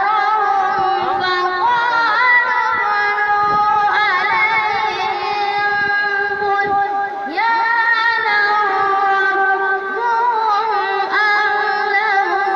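A boy chanting Quran recitation in the melodic tajwid style, amplified through a microphone. He sings long, held, wavering notes in phrases a few seconds long, with short breaks between them.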